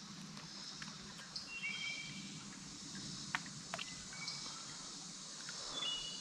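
Quiet creekside ambience: a steady faint hiss with a few short high bird chirps, and two sharp clicks a little past halfway.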